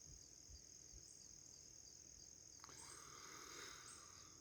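Near silence with a faint, steady, high-pitched insect trill throughout. A soft rustle comes about two and a half seconds in.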